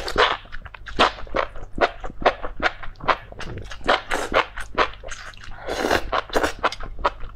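Close-up slurping and wet chewing of spicy enoki mushrooms in chili broth: a quick run of short sharp smacks and crackles, several a second.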